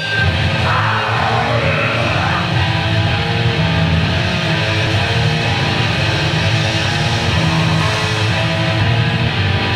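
A grindcore band playing live, loud and dense, with heavily distorted electric guitar over a steady low bass line. The full band comes in abruptly at the start, and a swooping sound dips and then rises in pitch a second or two in.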